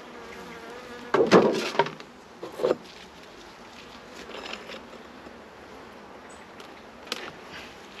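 Honeybees buzzing around an opened beehive, a steady hum with bees flying close past now and then. There are a few louder bursts, the loudest about a second in.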